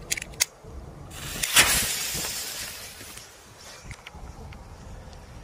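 A couple of sharp lighter clicks, then the joined fuses of a pack of Korsar 2 firecrackers catch and hiss for about two seconds before fading.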